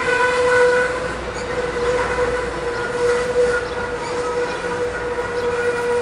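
Amtrak Pacific Surfliner passenger train rolling past and away, its low rumble under a long, steady high-pitched tone that does not break.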